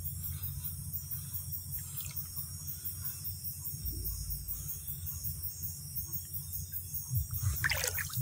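Shallow stream water trickling over gravel, with insects chirping in a fast, even pulse. There is a brief splash near the end.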